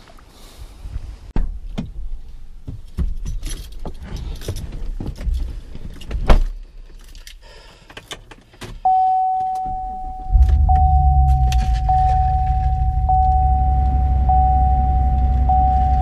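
Keys jangling and scattered clicks and knocks of handling, then a car's electronic warning chime sounds as a steady tone that re-strikes about once a second. A second or so later the car's engine starts and settles into a steady idle, with the chime going on over it.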